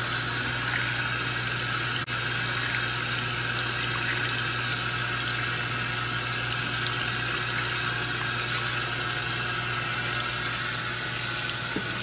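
Giantex portable washing machine filling its tub with water through the inlet hose: a steady rush of running water pouring in at the start of a wash cycle.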